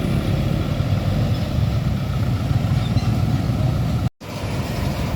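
Heavy truck's diesel engine running, with roadside traffic noise; the sound cuts out for an instant about four seconds in.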